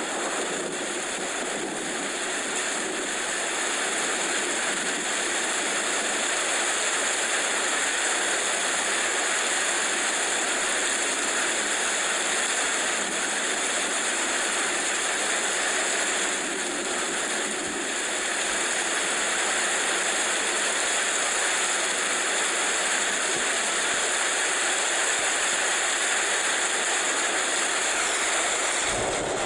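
Steady, even hiss of heavy rain falling, without let-up.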